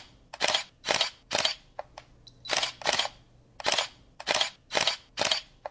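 A quick series of short, sharp, hissy snaps, about two a second and all much alike, with quiet between them. They sound like sound effects added in editing.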